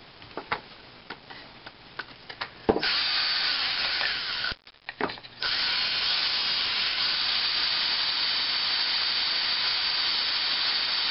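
Cordless drill boring a hole through a wooden board. A few knocks and clicks of handling first, then the drill runs for about two seconds, stops briefly, and starts again to run steadily through the rest.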